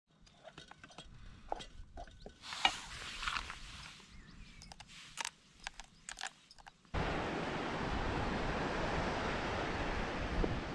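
Small clicks, knocks and rustles of food being handled in a metal camping pot. About seven seconds in, it switches abruptly to a steady rushing noise of coastal wind.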